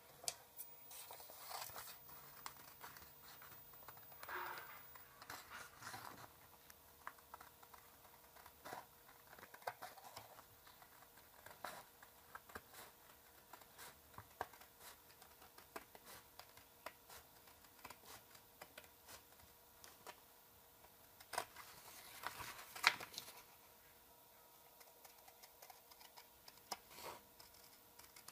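A glossy paper sheet printed with a PCB layout being handled on a cutting mat: faint rustling and crinkling with scattered light taps and clicks, a few louder rustles in the last third.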